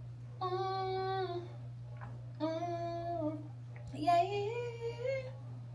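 A woman singing three long held notes, the last one sliding upward, over a steady low hum.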